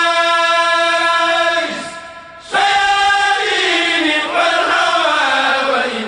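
Mouride khassida chanted by voices in unison, drawing out a long held vowel on one steady note. About two and a half seconds in a new phrase begins, wavering and then sliding downward in pitch.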